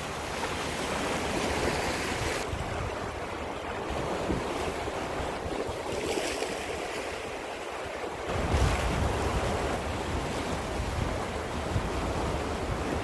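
Sea waves washing ashore, running high, under a steady wind. From about eight seconds in, wind buffets the microphone with a low rumble.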